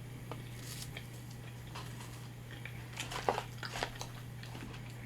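A person chewing food, with short wet mouth clicks and smacks, a cluster of them about three seconds in, over a steady low hum.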